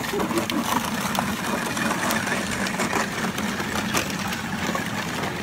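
Hard plastic wheels of a Little Tikes Cozy Coupe ride-on toy car rumbling and its front-mounted shovel blade scraping along a snowy driveway as the car is pushed. The result is a steady rattling rumble.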